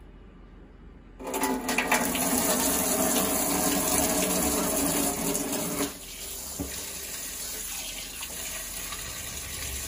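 Kitchen tap turned on about a second in, water running and splashing into a stainless steel sink. After about six seconds it gets quieter and stays steady as hands rinse leafy greens under the stream.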